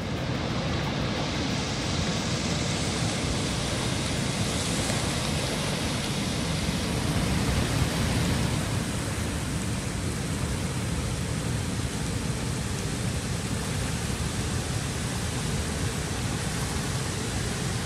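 Steady rush of river water pouring through a dam spillway and running over the rocky shallows below.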